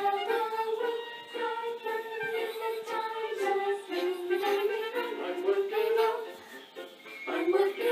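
Music with a singing voice, a melody moving in held notes.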